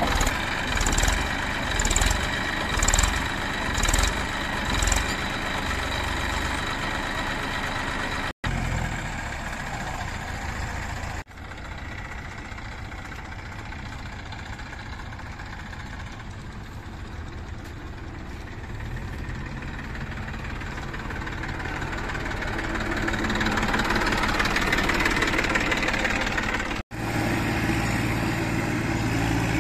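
Tractor diesel engines running under load with loaded sand trolleys. At first it is a Massey Ferguson 241 DI three-cylinder straining in loose sand, pulsing about once a second. Later another tractor's engine swells louder and then settles into a steady low drone.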